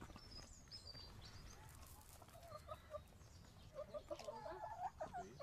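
Hens clucking faintly in short scattered calls, which become more frequent from about halfway through.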